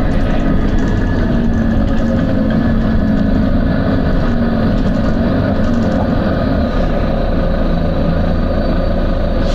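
Volvo B9TL double-decker bus's diesel engine running steadily, its note drifting a little up and down.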